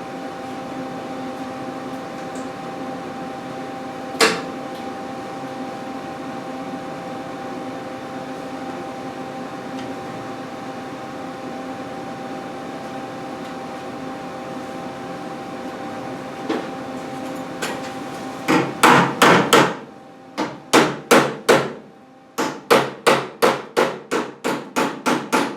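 Steady hum with a single knock about four seconds in, then, from about eighteen seconds in, a quick run of hammer blows on the truck's sheet-metal body, about three a second in short bursts, as a patch panel is worked into place.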